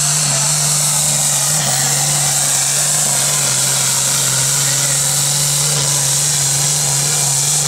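Massey Ferguson tractor's diesel engine running flat out at a steady pitch under full load, dragging a weight-transfer pulling sled.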